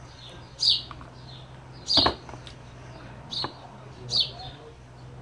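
A bird calling in short, falling chirps, four times, with a sharp knock along with the second chirp.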